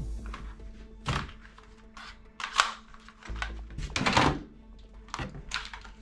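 Irregular knocks and clacks of hard plastic toy guns being handled, with a sharp click about two and a half seconds in and a louder clatter about four seconds in.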